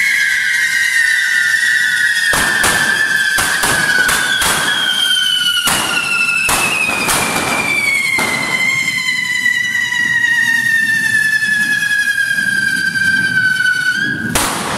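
Whistling firework fountains (carretilles xiuladores) fixed to a correfoc dragon figure, burning: high whistles overlap, each falling slowly in pitch, and a new one comes in about four seconds in. Several bursts of loud hiss come between about two and eight seconds in, and another near the end.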